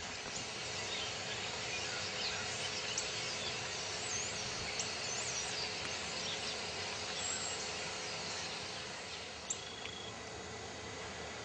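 Woodland ambience: a steady background hiss with a few short, high bird chirps scattered through it and a brief high whistle near the end.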